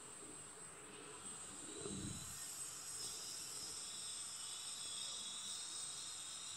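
Steady, high-pitched chorus of insects, with a soft low bump about two seconds in.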